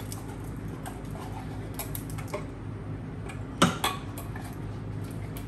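Spatula scraping thick soup out of a tin can, with light scrapes and small clicks against the metal and a sharper knock about two-thirds of the way through.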